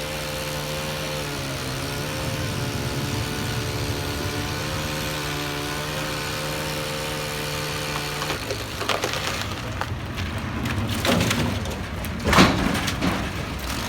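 An engine running steadily, which drops away about eight seconds in. A run of sharp cracks and snaps of wood follows, the loudest about half a second after twelve seconds in.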